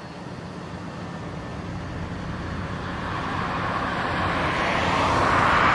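Road traffic noise: a vehicle's tyre and engine sound growing steadily louder as it approaches.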